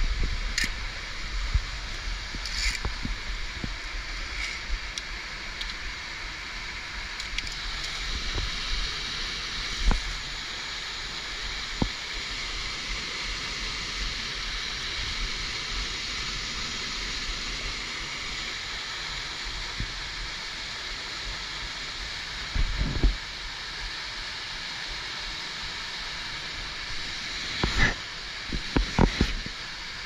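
Waterfall rushing steadily close by. Occasional sharp knocks and a few heavier bumps come from handling near the microphone, with the bumps near the end.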